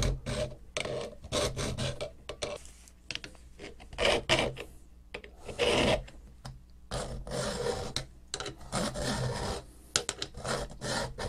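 Flat hand file rasping across a hard steel part clamped in a vise, in uneven back-and-forth strokes, some short and a few longer ones.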